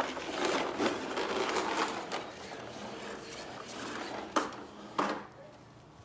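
Plastic toy cars, a toy ambulance and police car, pushed and rolled across a wooden floor: a rubbing, rolling noise, strongest for the first two seconds, then two sharp knocks near the end.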